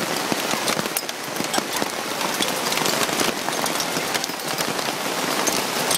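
Hail pelting down: a dense, steady patter of many small hailstones striking, with sharper individual clicks scattered all through it.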